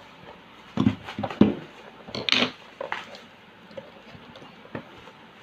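Clinks and knocks from a glass French press coffee maker and its packaging being handled, in a quick cluster in the first second and a half, then a short scrape and a few fainter knocks.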